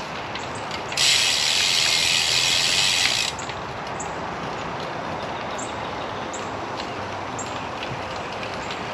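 Lynskey R300 road bike's rear freehub ticking with its pawls, typical of coasting, over a steady rush of riding noise. A louder hiss rises about a second in and drops away a little after three seconds.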